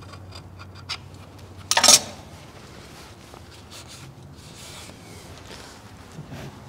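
Shop towel rubbing and wiping on the metal at the front of a CAT C15 engine, around the opening where the front main seal was removed. A small click comes about a second in, and a brief, loud rushing burst about two seconds in.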